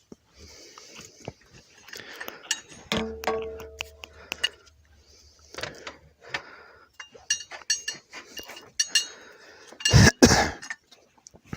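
Metal hand tools clinking and knocking against the metal fittings of a propane changeover valve while working at a seized fitting, with a short ringing clank about three seconds in and a loud knock near the end.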